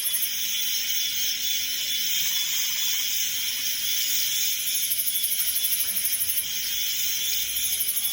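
A song playing through a Bose Smart Soundbar 900 home-theatre system, in a sparse break between vocal lines: a hissing, airy texture with almost no bass, and bursts of fast, high ticking like a hi-hat or shaker that drop out and come back twice.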